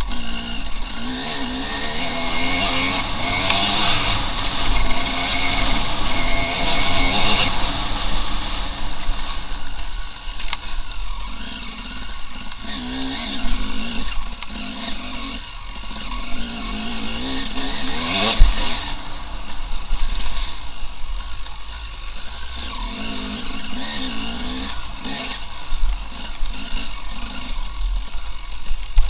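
Enduro motorcycle engine revving up and down repeatedly as it is ridden off-road, with a sharp knock about two-thirds of the way through.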